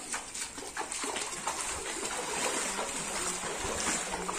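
Feet wading through shin-deep floodwater, splashing and sloshing with each step.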